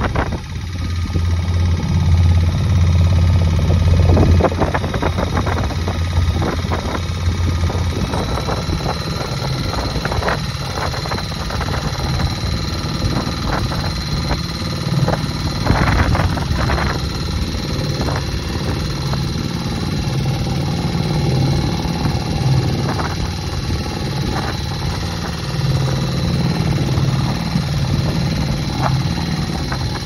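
Boat engine running steadily under way, with water splashing against the hull now and then. A thin high whine joins about 8 seconds in.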